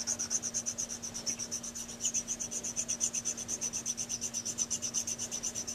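Half-round tapered needle file, fine number 2 cut, rasping back and forth over the tip of a Dukoff saxophone mouthpiece in quick, even strokes, several a second: fine shaping and feathering of the tip.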